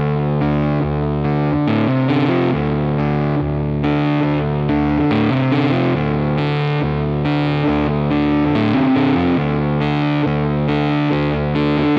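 Background music: distorted electric guitar playing a steady rhythmic riff.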